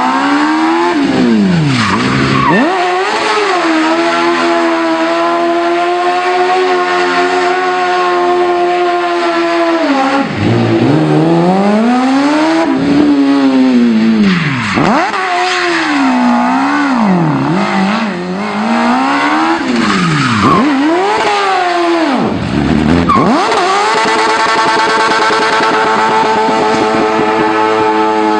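Modified Smart car's engine revving hard, its pitch swinging up and down again and again and held high and steady for several seconds twice, while the tyres spin and skid in a smoky burnout.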